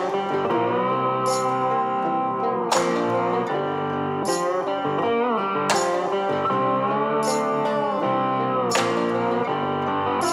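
Background music: guitar-led blues with sliding, bending notes over a slow beat, with a crisp hit about every one and a half seconds.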